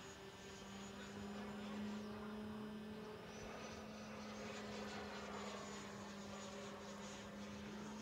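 Faint high-pitched whine of an E-flite F-16 RC jet's electric ducted fan in flight. Its pitch drops about two seconds in and rises again a little later, over a steady low hum.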